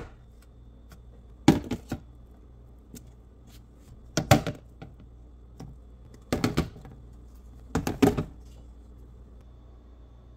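Glass food storage containers with plastic snap-lock lids being set down and stacked on a cabinet shelf: four short bursts of knocks and clinks spread over the first eight seconds.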